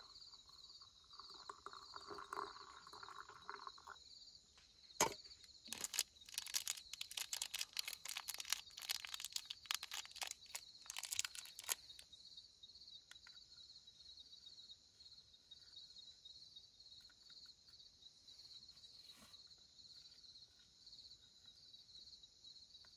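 Crickets chirping steadily in fast pulses. About five seconds in, a stretch of crinkling, crunching clicks starts and runs for about seven seconds; it is louder than the crickets.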